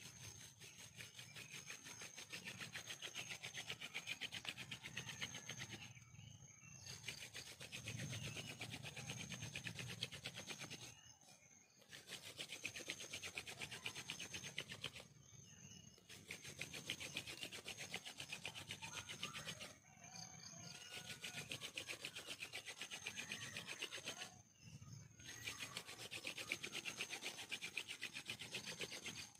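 Wooden hand-drill spindle spun back and forth between the palms on a two-stick wooden hearth, making a fast rasping of wood grinding on wood. The rasping comes in runs of several seconds broken by five short pauses as the hands go back to the top of the spindle. The hearth is smoking, so the friction is charring the wood dust on the way to an ember.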